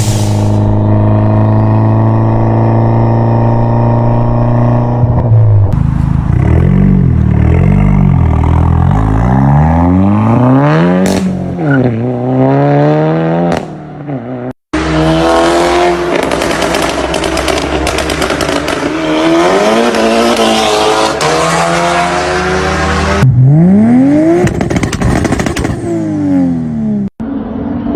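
Turbocharged sports car engines in several clips cut one after another: first a high held engine note, then revs rising and falling again and again, then a harsher, noisier run at high revs, and another rev up and down near the end.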